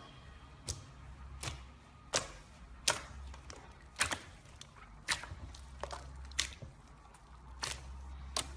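Slime being squeezed and pressed, giving short sharp pops and clicks about once a second at an uneven pace, from air pockets bursting in the slime.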